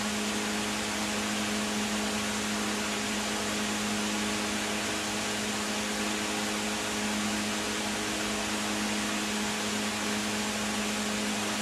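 Steady low machine hum over a constant hiss, unchanging throughout.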